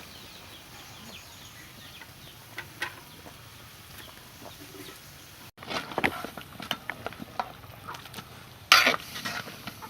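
Chickens clucking faintly in the background, followed by a run of clicks and knocks of cooking utensils, with one loud knock near the end.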